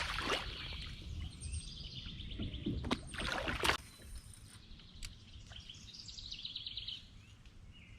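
Bird song: a rapid trill of high repeated notes about a second and a half in and again around six seconds. A few sharp knocks and splashes around three to four seconds in, over a steady low rumble of wind and water.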